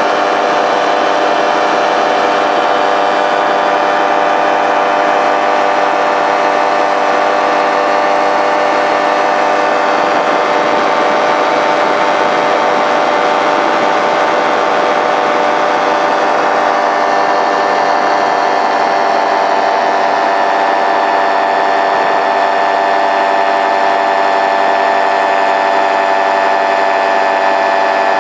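Powered paraglider trike's engine and propeller running steadily in cruising flight: a loud, even drone that holds one pitch throughout.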